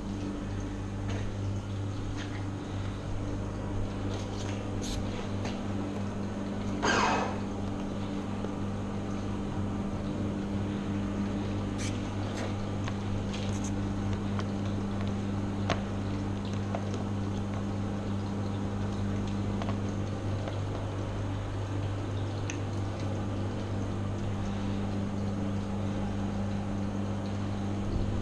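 Hand-wiping a dirt bike's plastics with a sponge: faint rubbing and scattered light clicks over a steady low machine hum. A brief falling swish about a quarter of the way in is the loudest moment.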